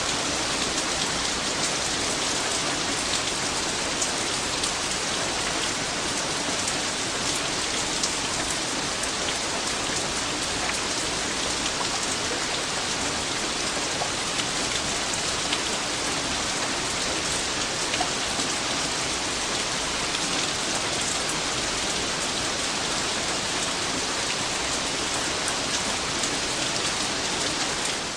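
Steady, heavy rain falling on a surface, a dense hiss with many individual drops ticking through it.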